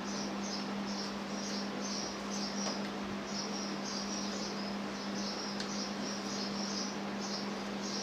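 Insects chirping in short high-pitched pulses, about two to three a second, over a steady low hum, with a few faint clicks.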